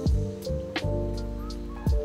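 Background music: sustained chords over a deep kick drum that lands about once a second, with light high ticks like a hi-hat.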